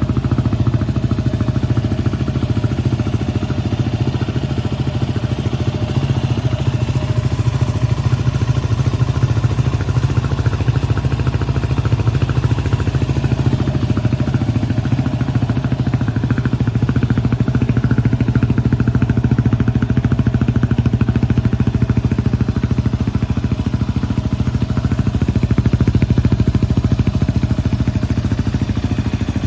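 Yamaha WR250X's 250 cc single-cylinder four-stroke engine idling steadily through an aftermarket FMF silencer and SP Tadao exhaust header, with no revving.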